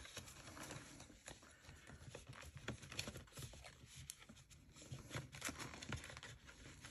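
Faint handling of paper banknotes and a clear plastic cash envelope in a ring binder: soft rustling with many small, irregular clicks and taps from long acrylic nails on the plastic.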